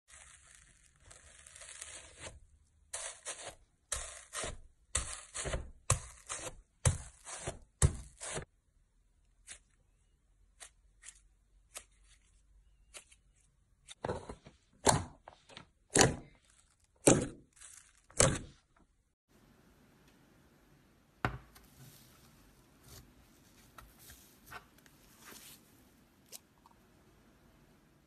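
Slime being pressed and squeezed: a fizzing crackle at first, then a run of short, sharp sticky pops and clicks about two a second. Midway come five louder pops about a second apart, then a faint soft crackle.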